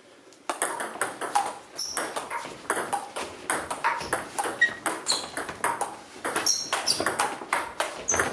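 A table tennis rally beginning with the serve about half a second in: the ball clicks off the bats and the table in quick, irregular succession.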